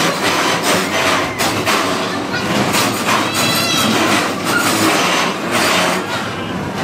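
Bumper cars with rubber bumper rings running and colliding: a steady rumbling clatter with irregular knocks and thuds, and a few brief high squeals.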